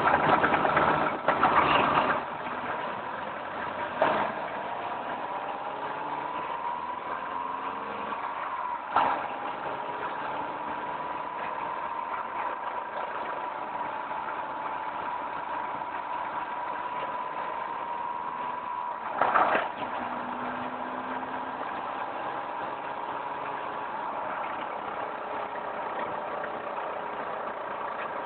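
Volkswagen Mk4 Golf running on the move: a whine that rises in pitch over a few seconds, then holds steady and slowly falls. Sharp knocks come near the start, at about nine seconds and again at about nineteen seconds.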